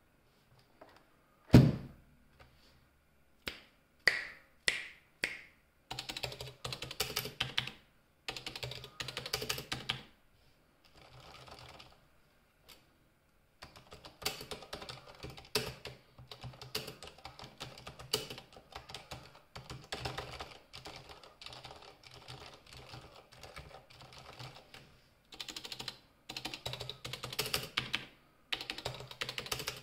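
Typing on a Corsair Strafe RGB MK2 mechanical keyboard with stock Cherry MX Silent Red switches. There is a single loud thump about a second and a half in, a few separate keystrokes, then long runs of fast typing with short pauses.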